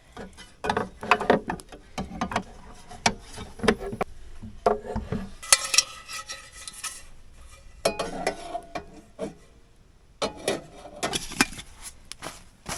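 Metal cookware and a small camp stove being handled: irregular clinks, knocks and scrapes as pots and a pan are set out and tried on the stove, with a noisier stretch of about a second midway.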